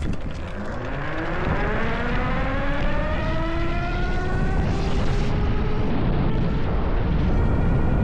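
A 72-volt QS205 rear hub motor whines under full-throttle acceleration from a standstill. Its pitch rises steadily as the fat-tire ebike climbs to nearly 50 mph, and the rise slows about five seconds in. Wind rumble on the microphone grows with the speed.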